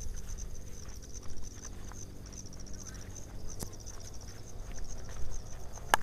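Insects chirring steadily in the scrub at dusk: a continuous high-pitched, finely pulsing trill, over a low rumble and with a single click a little past the middle.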